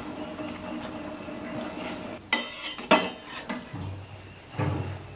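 A steel ladle striking the side of a stainless steel pot twice, sharp ringing clinks about half a second apart just after two seconds in, over a steady low hum, followed by a couple of duller knocks near the end.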